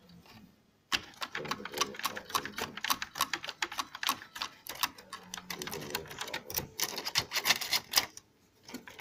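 Canon iP4980 inkjet printer's carriage and drive-switching gears clicking and rattling as the print-head carriage moves over the purge unit. It is a rapid, irregular run of plastic clicks, starting about a second in and stopping just before the end.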